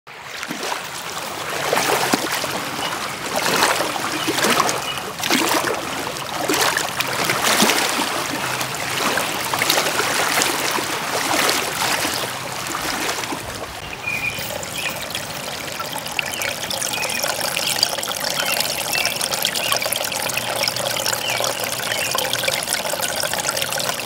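Small waves washing in over rounded shore stones, in surges every second or so. About halfway through, this gives way to the steadier trickle of a small stream of water running over a log.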